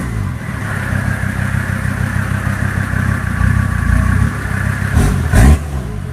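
Mercedes OM617 five-cylinder turbodiesel running with a steady turbo whistle over the engine note, then revved once briefly about five seconds in before settling back.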